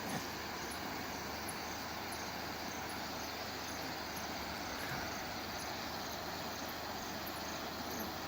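Night outdoor ambience: a steady even hiss with insects chirping high and short, a few times a second.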